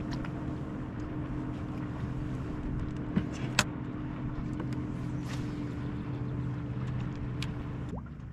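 Boat motor humming steadily, with two sharp clicks about three seconds in; the hum drops away near the end.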